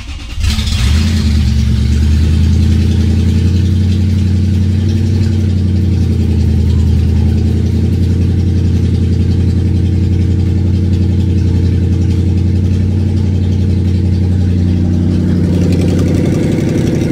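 Lexus 3UZ-FE 4.3-litre V8 starting from cold, catching within the first second, then idling loud and steady with no exhaust system fitted.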